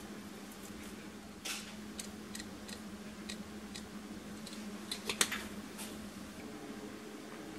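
Light clicks and taps from plating food: a spoon against the plate and a dried-parsley spice jar shaken over the dish, with the loudest cluster of clicks about five seconds in. A steady low hum runs underneath.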